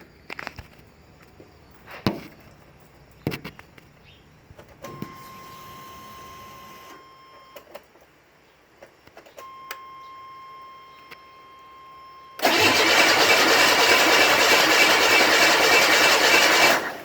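Buick Grand National's 3.8 turbo V6 being cranked by its starter for about four seconds without catching, then cut off: a no-start. Before it, a few clicks and a steady whine heard twice as the ignition is switched on.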